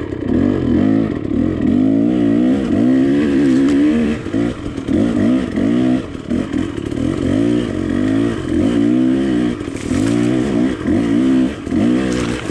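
KTM 300 two-stroke dirt bike engine revving up and down in quick, repeated throttle bursts, its pitch rising and falling every second or so under load on a steep climb.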